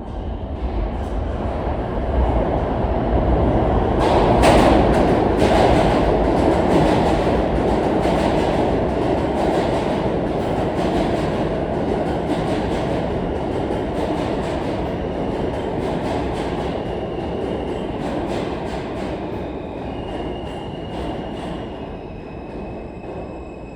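R160 subway train rumbling along the track, its wheels clicking over the rail joints. It is loudest about four to six seconds in, then slowly fades, with faint high whining tones toward the end.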